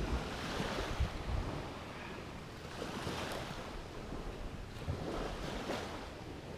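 Sea surf washing onto the shore in slow swells, with wind buffeting the microphone.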